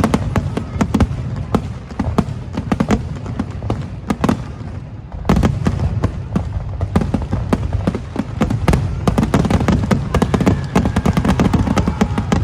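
Aerial fireworks display: a rapid, irregular barrage of bangs and crackles over a low rumble, growing denser about five seconds in and again in the last few seconds.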